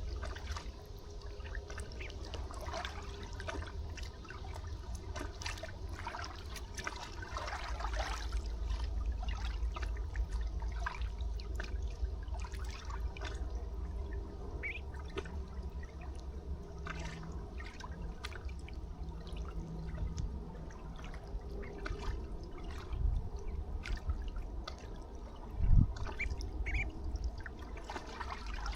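River water trickling and lapping at the shore, with many small splashes and ticks over a steady low rumble. A single dull thump near the end is the loudest sound.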